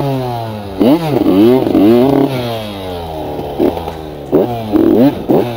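KTM 125 EXC two-stroke enduro motorcycle engine revved in short throttle blips, its pitch jumping up and dropping back each time. In the middle the revs sink slowly to a low steady note, then several quick blips follow near the end.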